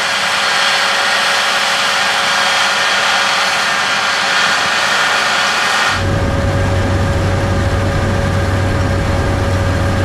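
John Deere X9 1100 combine harvester running as it harvests wheat: a steady mechanical rush with several high, even whines. About six seconds in the sound changes abruptly to a deep, steady engine drone with rushing noise, heard up close on the machine.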